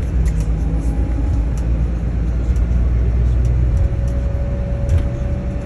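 Airport apron bus driving, its engine and road noise making a steady low rumble inside the cabin, with light rattles. A steady whine joins about three seconds in.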